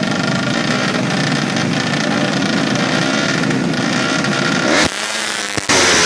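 Tuned four-stroke underbone drag-racing motorcycle engine running hard at high revs with a dense, rasping exhaust. About five seconds in the sound breaks off abruptly, then returns louder a moment later.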